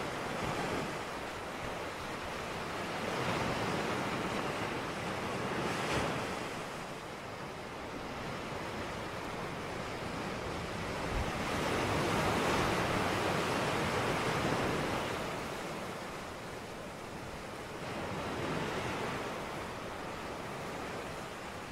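Ocean surf: a steady wash of waves breaking, swelling and easing every several seconds.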